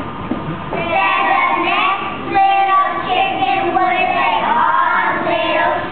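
A group of young children chanting a poem together in a sing-song chorus, starting about a second in.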